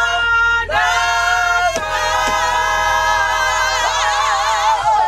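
Several voices singing loudly together in harmony, holding long notes: a short note, a brief break, then one chord held for about three seconds, its pitch wavering with vibrato near the end.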